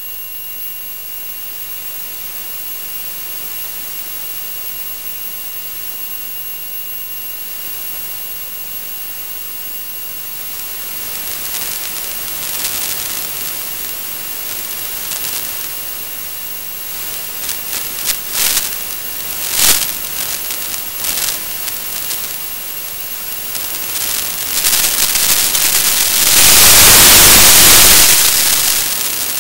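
Static from an analog FPV video receiver's audio channel: a steady hiss with two faint, constant high tones, breaking into crackles about a third of the way in and swelling into a loud rush of static a few seconds before the end.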